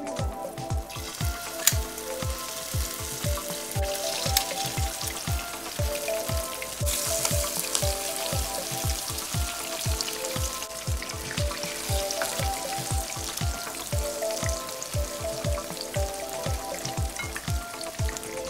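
Fritter batter frying in hot olive oil in a skillet: a steady sizzle that sets in about a second in. Background music with a steady beat plays throughout.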